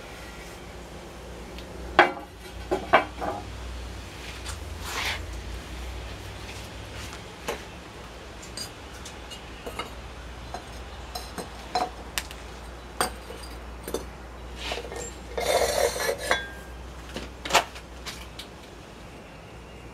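Bisque-fired ceramic bowls and dishes clinking and knocking against each other as they are lifted out of the kiln and set down on a stack. The hits are scattered, the loudest about two seconds in, with a quick run of rattling clinks about three-quarters of the way through.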